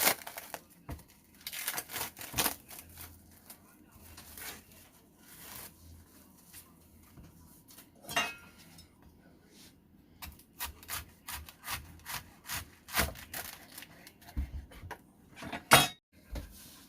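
Irregular rubbing and scraping noises of vegetables being handled, with a sharp knock near the end.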